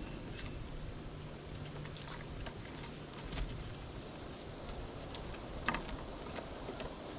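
Gray squirrel feeding on seed on a wooden table close to the microphone: irregular small clicks and taps as it cracks seed shells and noses through the seed, with one louder click near the end.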